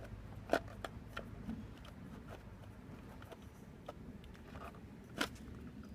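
Headlight being pushed and seated into its mount, giving scattered light clicks and knocks, with one louder knock about five seconds in.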